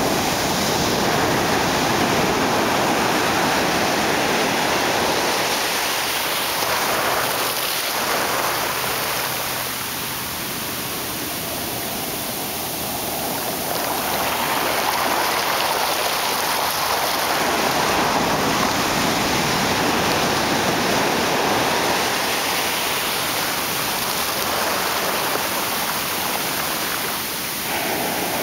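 Shallow surf washing over sand at the water's edge: a steady rushing hiss of foamy seawater that swells and eases with the waves, softening for a few seconds about a third of the way in.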